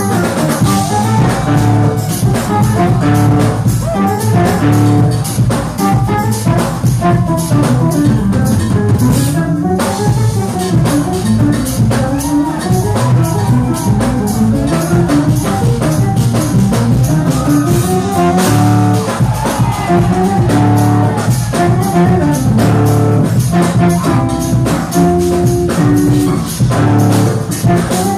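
Live jazz-fusion band playing loud and without a break: drum kit and percussion under melodic lines from guitar, keyboards and horns.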